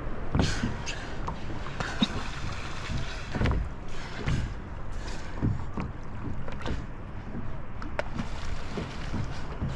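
Water sloshing and splashing against a kayak's hull in irregular surges, with a few sharp slaps, over light wind on the microphone.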